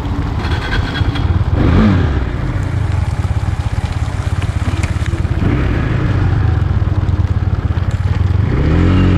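KTM 390 Duke's single-cylinder engine running as the motorcycle rides slowly. The revs rise and fall about two seconds in and again near the end.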